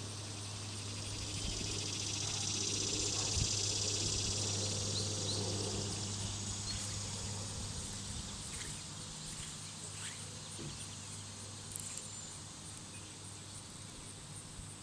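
Outdoor pond ambience: a high, fine insect drone that swells about two seconds in and fades after about six seconds, over a faint low steady hum.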